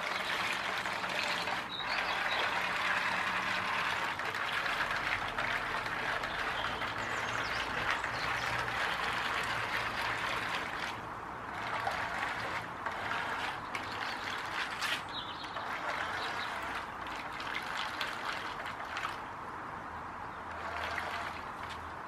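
Radio-controlled toy boat's small electric motors running as its styrofoam ball wheels paddle through shallow water, a steady splashing and churning over a low motor hum.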